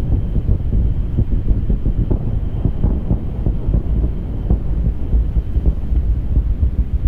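Saturn V rocket's first-stage F-1 engines firing during launch: a loud, deep rumble full of rapid crackling.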